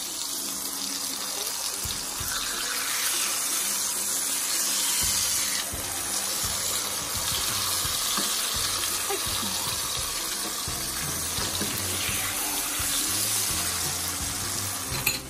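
Tortillas dipped in red enchilada sauce frying in hot oil in a pan, with a steady, loud sizzle.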